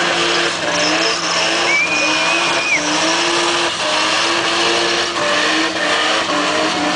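Toyota Hilux's 1JZ-GTE twin-turbo straight-six held high in the revs through a burnout, its note wavering up and down as the rear tyres spin and smoke. A high tyre squeal rises out of it for about a second near the two-second mark.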